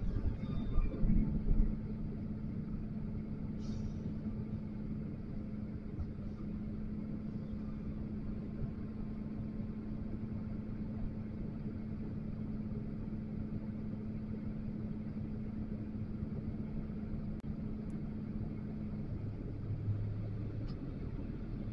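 XCMG LW500HV wheel loader's diesel engine running steadily, a low even hum over rumble. It is louder for the first second or so, and the hum shifts lower about two seconds before the end.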